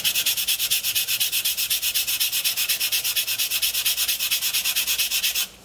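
Sandpaper rubbed by hand, fast back and forth, over the edge of a Depron foam piece: a rapid, even scratching at about eight strokes a second that stops abruptly near the end.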